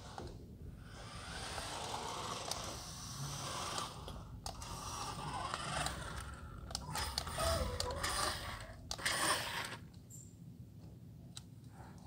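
Toy remote-control car driving across the floor: its small electric motor and gears whirring, rising and falling as it moves, with a few sharp clicks and knocks.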